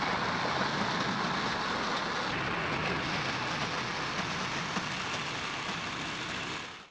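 Motor-driven meat grinder running steadily while meatball mix is fed into it: a continuous mechanical drone that fades out at the very end.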